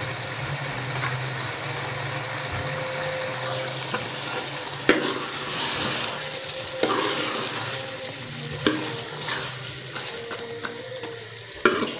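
Green beans and chicken masala sizzling in a metal pot as a metal ladle stirs them, knocking against the pot about four times in the second half. The sizzle is steady and fades slightly toward the end.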